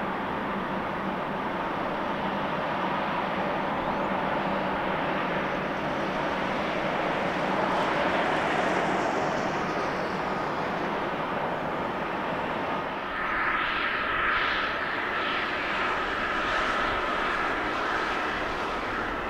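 Jet engines of an Airbus A320 airliner running on the ground, a steady hiss. About two-thirds of the way through it changes to a louder, wavering whine.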